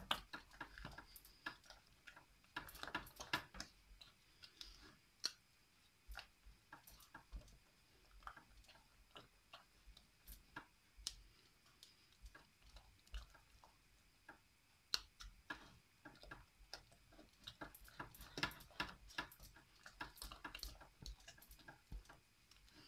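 Wooden spoon stirring thick choux pastry dough in a stainless steel saucepan over low heat, giving faint, irregular clicks and taps as it knocks against the pan.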